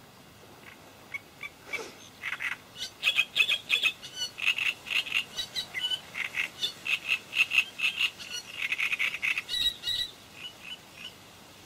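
An animal calling: a long run of short, rapid notes, several a second, that stops about ten seconds in.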